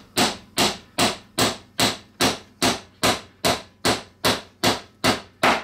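Wooden mallet striking the end of a cherry blank in steady, evenly spaced blows, about two and a half a second, driving it down through the 1/4 inch die of a Veritas dowel former to cut a dowel; the blows stop near the end.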